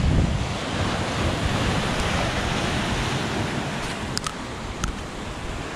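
Sea waves washing, with wind buffeting the microphone, and a couple of brief clicks near the end.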